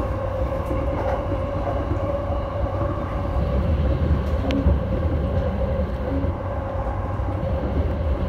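JR Yamanote Line electric train running along the track, heard from inside the front car: a steady low rumble with a steady hum over it and a few faint clicks.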